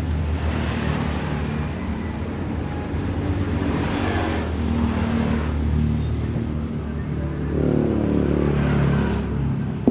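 A vehicle engine running steadily with a low hum, its pitch shifting a little, with a fainter rise in the middle pitches near the end.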